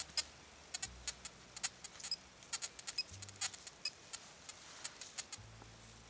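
Gloved hands and a pinpointer probe digging through dry soil and leaf litter: a scatter of small, irregular crackles and ticks.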